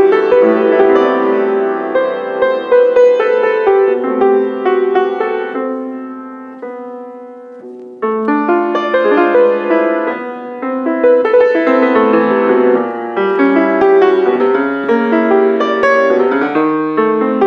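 Grand piano played, a flowing passage of many notes. It dies away between about six and eight seconds in, then comes back strongly with a fresh chord.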